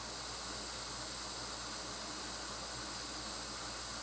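Hot air rework station blowing a steady hiss of hot air onto a chip being reflowed on a circuit board.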